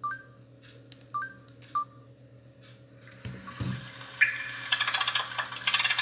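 Samsung C3322 mobile phone giving short two-note key beeps three times as its ringtone list is scrolled. About four seconds in, a ringtone preview starts playing through the phone's speaker, a tune with a regular pulsing beat, just after a dull handling thump.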